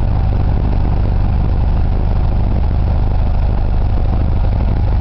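Light aircraft's piston engine running steadily with the propeller turning, a loud even drone heard from inside the cockpit.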